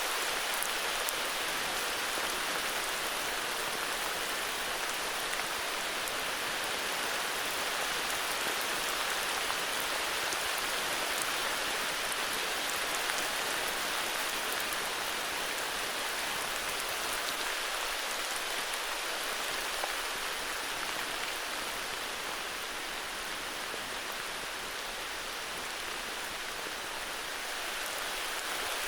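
Steady heavy rain, a dense even hiss of drops falling, easing slightly for a few seconds near the end.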